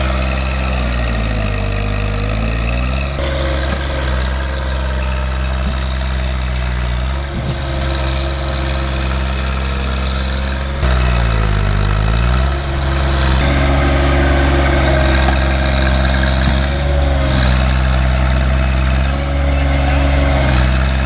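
John Deere 1025R compact tractor's three-cylinder diesel engine running steadily while its front loader digs into soil. Its pitch dips and recovers twice under load, about a second in and again about eleven seconds in, with a steady whine above the engine note.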